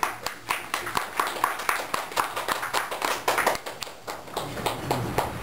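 Scattered hand clapping from a small group of people: irregular sharp claps, several a second, thinning out near the end.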